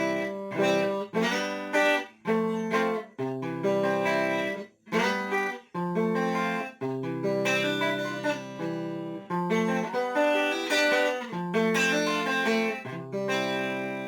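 Guitar played through a multi-effect pedal with the compressor off: a clean, uncompressed run of plucked chords, each struck sharply and left to ring and fade, the last dying away near the end.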